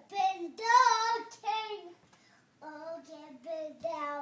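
A young girl singing unintelligible phrases in a high, childish voice, breaking off briefly about halfway before carrying on at a lower pitch.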